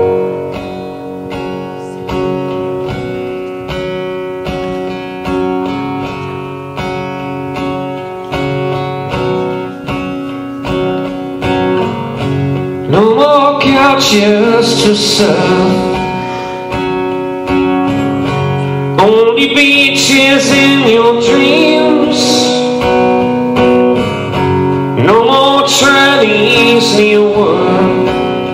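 Live acoustic guitar strumming chords, with a man singing into the microphone from about halfway through, in phrases separated by short instrumental gaps.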